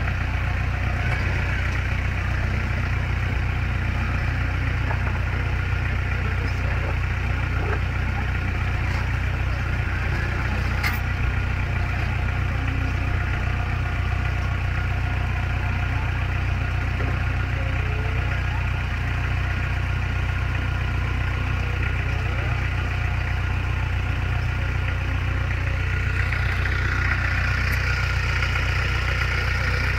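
Jeep engine running steadily at idle, a low even drone with no revving.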